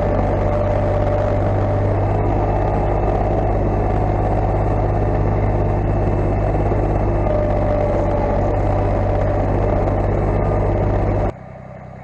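Engine of farm machinery running steadily at constant speed, a low even drone, cut off abruptly near the end.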